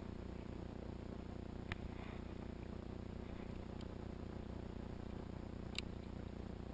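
A steady low background hum with two sharp, short clicks about four seconds apart and a fainter tick between them.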